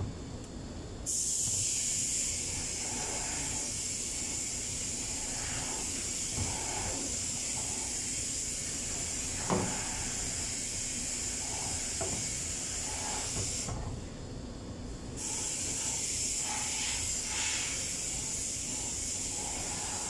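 A steady high-pitched hiss that starts suddenly about a second in, cuts out briefly about two-thirds of the way through, then resumes. A few light knocks of metal parts being handled are heard beneath it.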